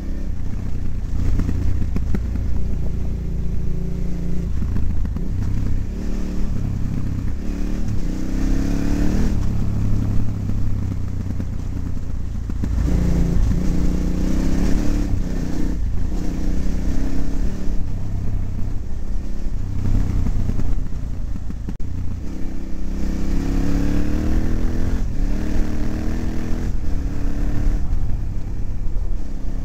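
KTM 950's V-twin engine running under changing throttle on a rough dirt trail, revving up and easing off several times, with clattering from the bumps.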